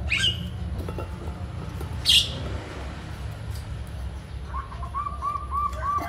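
Short sharp hisses as the R290 refrigerant charging line is closed off, the louder one about two seconds in. In the last second and a half comes a run of evenly spaced chirps, about three a second.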